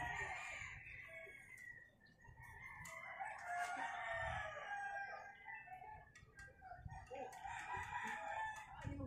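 Roosters crowing: several long crows, one after another, each lasting a couple of seconds.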